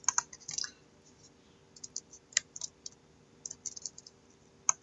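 Typing on a computer keyboard: irregular, quick key clicks in short clusters, fairly faint.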